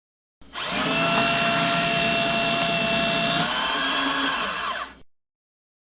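Electric paper shredder running with a steady motor whine for about four and a half seconds. Its tone shifts about three and a half seconds in, and then it cuts off abruptly.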